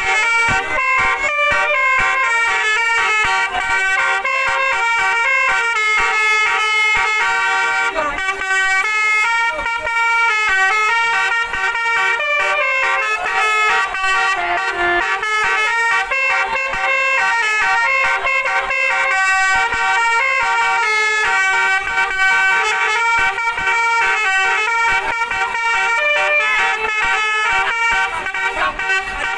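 A bus's telolet horn, a set of tuned multi-trumpet air horns, playing a long tune. Several notes sound at once and change in quick steps.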